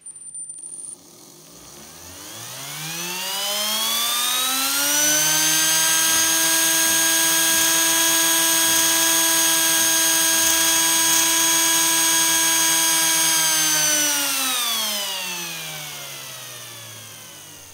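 3D-printed three-phase brushless electric jet motor spinning up with a rising whine, holding a steady high-pitched whine for about ten seconds, then spinning down with a falling whine. A short high beep sounds at the very start.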